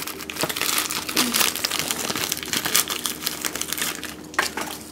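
Plastic biscuit packet crinkling as it is handled and biscuits are pulled out of it: a dense run of crackles and rustles that dies down near the end.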